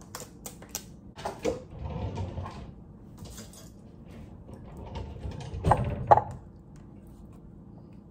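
Plastic ricotta tub being handled over a glass mixing bowl: a few light clicks, scattered rustling and clatter, then two loud knocks close together about six seconds in.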